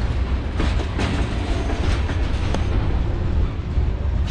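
Freight train rolling past: a steady, loud rumble of cars on the rails, with wheels clacking over rail joints now and then.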